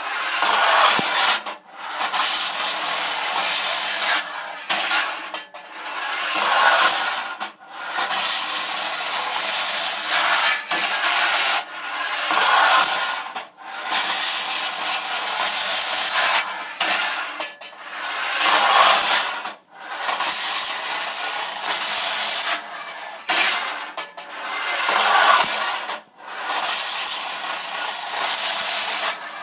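Tin wind-up toy: a clockwork bus running along its looping tin track with a continuous metallic rattling whirr, broken by brief gaps every two to three seconds.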